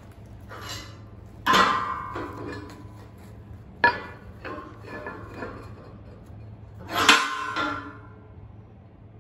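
Steel end cap plate and steel rule and square clanking against a steel I-beam as the plate is held to the beam's end and lined up: three loud, ringing metal clanks with lighter knocks between them.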